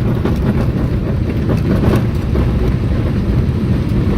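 Vehicle driving on a country road: a steady low rumble of engine and tyres, with scattered short knocks and rattles.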